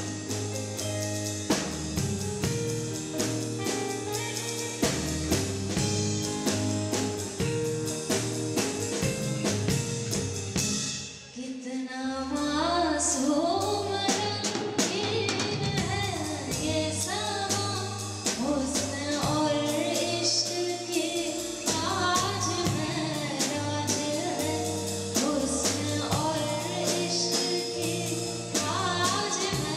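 Music with a drum kit; after a brief dip in level about a third of the way in, a voice sings over the music for the rest.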